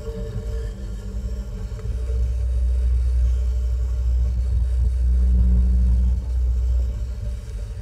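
Deep, steady rumbling drone from a contemporary piece for violin, double bass and home-made mechanical instruments. It swells about two seconds in and eases off near the end, with fainter held tones above it.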